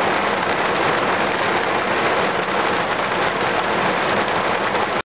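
Heavy thunderstorm rain pouring down, a dense steady hiss of downpour, breaking off for an instant at the very end.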